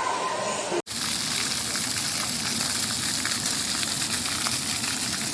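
Steady hiss of falling or spraying water. It starts abruptly just under a second in, after a brief moment of voices and a break to silence.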